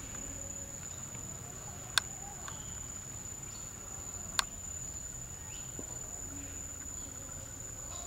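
A steady, high-pitched insect trill, held on one unbroken tone. Two sharp clicks cut through it, about two seconds in and again about four and a half seconds in.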